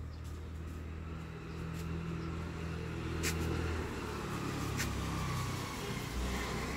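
A steady low motor hum that grows a little louder about two seconds in, with two sharp clicks about a second and a half apart midway.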